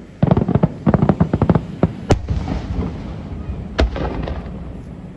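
Fireworks bursting: a rapid string of sharp cracks for about a second and a half, then two loud bangs, the second followed by a short crackle.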